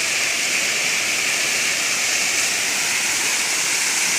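Steady, even rush of water: a continuous hiss with no breaks or distinct events.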